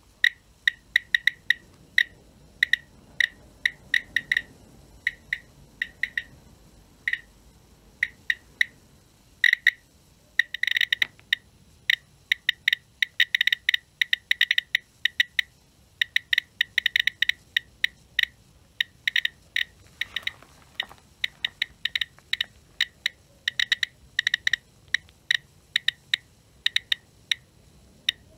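Thermo Scientific RadEye B20 survey meter's audible count clicks: short high chirps at irregular, random intervals, coming in dense clusters at times. It is counting radiation from blast furnace slag at an elevated dose rate of about 1 µSv/h.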